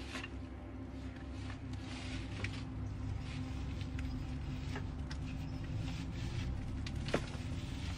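Long wooden pole poking and scraping at wet leaf debris on corrugated roof sheeting from below: scattered light scrapes and taps, with one sharper knock about seven seconds in. A steady low hum runs underneath.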